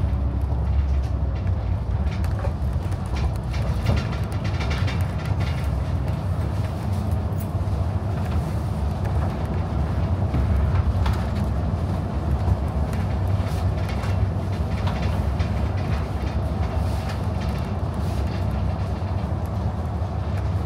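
Inside a city bus under way: a steady low engine and road rumble, with frequent small rattles and knocks from the bus body and fittings.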